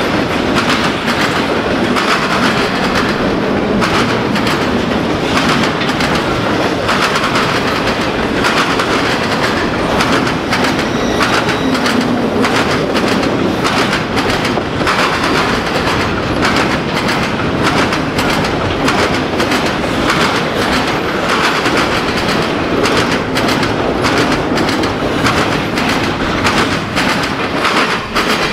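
Double-stack intermodal well cars rolling past on steel wheels, clickety-clack over the rail joints with a steady rumble and rattle. The noise falls away near the end as the last car goes by.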